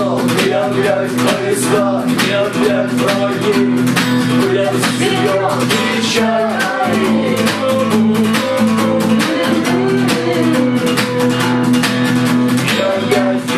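Instrumental break of a rock song: guitars playing over a steady, fast beat, with no vocals.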